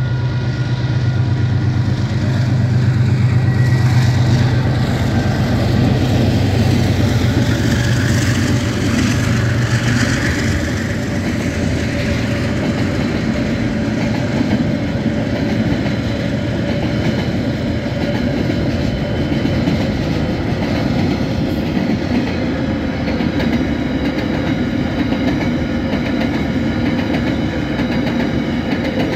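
A freight train rolls through a level crossing: the GE-built DX-class diesel locomotives' engines drone for roughly the first ten seconds as they pass, then fade under the steady rolling noise of the wagons' wheels on the rail. Steady high tones run through it all, likely the crossing's warning bells.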